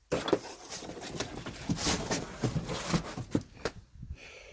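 Items being handled: a run of irregular crinkles, rustles and small knocks, dying down about three and a half seconds in.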